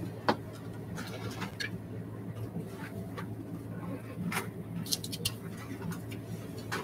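Scattered small clicks, scratches and rustles of pens and paper as a group writes on note cards, over a steady low hum.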